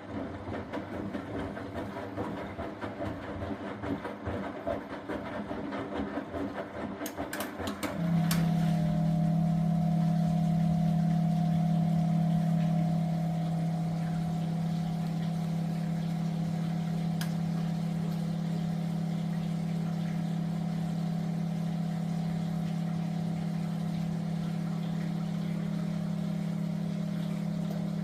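Miele W423 washing machine running: an uneven churning noise with a few clicks, then about eight seconds in a loud steady hum starts suddenly and holds.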